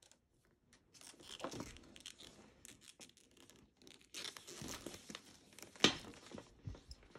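Rustling and handling noises from a leather shoulder bag and its strap being moved about, starting about a second in, with a sharp click about six seconds in.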